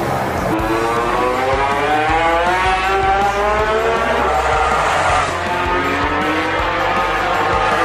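MotoGP racing motorcycle engine at full throttle, its pitch climbing steadily, falling away sharply about five seconds in, then climbing again.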